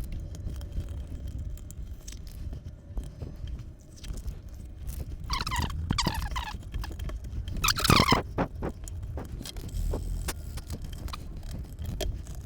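Adhesive tape being peeled off wood, two squealing tears about halfway through, the second shorter and louder, with small handling clicks between.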